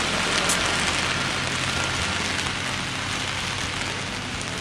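Steady rain falling on an open umbrella overhead and on wet paving.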